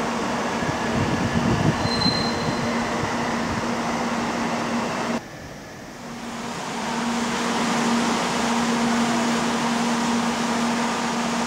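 Steady hum and hiss of a Shinkansen 700 series bullet train at a station platform. The sound drops away suddenly about five seconds in and swells back over the next two seconds.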